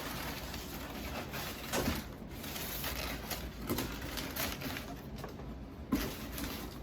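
Cardboard box and packing material being handled during an unboxing: rustling and scraping, with a few knocks, the sharpest near the end.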